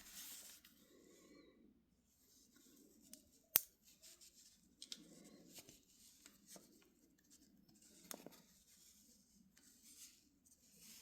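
Faint handling of a stockman pocket knife: quiet rubbing and small metallic clicks, with one sharp click about three and a half seconds in.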